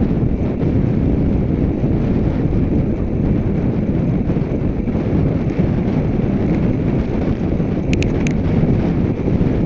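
Wind buffeting the microphone of a camera on a moving bicycle: a steady rushing noise, with a few short clicks about eight seconds in.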